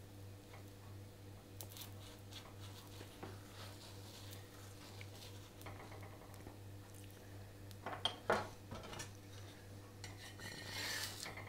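Faint kitchen-utensil sounds on a tava: light taps and clinks, two sharper clicks about eight seconds in, and a scraping rustle near the end, over a low steady hum.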